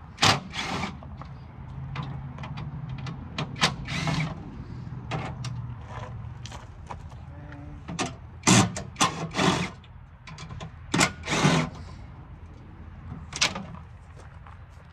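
Cordless drill run in short bursts, driving fasteners out of cast-metal parking lot light housings. Sharp metal knocks and clanks from the fixture parts come between the bursts.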